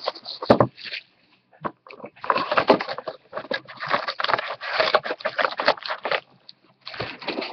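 A 2013 Bowman Sterling cardboard hobby box being opened by hand, its foil-wrapped card packs crinkling and rustling as they are lifted out. The rustling comes in several bursts with short pauses, after a sharp knock about half a second in.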